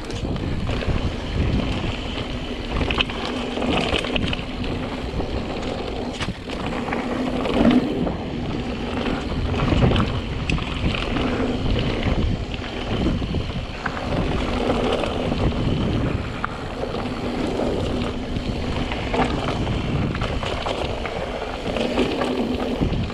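Mountain bike riding down a dirt singletrack: a steady rush of wind on the microphone, with tyres rolling over dirt and rocks and the bike rattling and knocking over the bumps.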